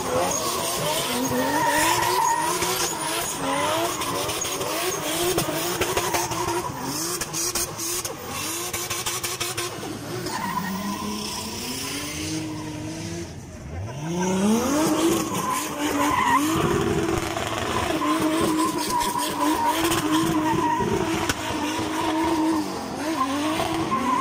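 Drift cars' engines revving hard at high rpm while their rear tyres spin and screech in the slide. About halfway through, the engine note drops away briefly, then climbs steeply as the throttle reopens.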